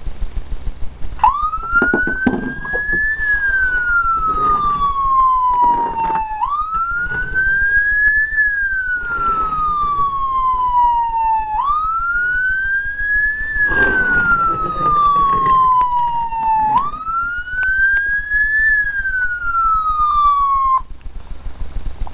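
An electronic wail siren sounding four slow cycles, each rising for about two seconds and falling for about three. It starts about a second in and cuts off near the end, with handling noise and a low electrical hum underneath.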